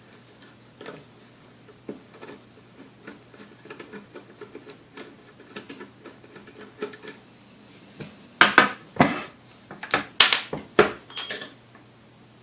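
Small hard parts and a tool clicking and scraping as a secondary motor brush is worked out of a vintage Hamilton Beach Model D mixer. About eight seconds in comes a run of much louder sharp clacks and clatters that lasts for several seconds.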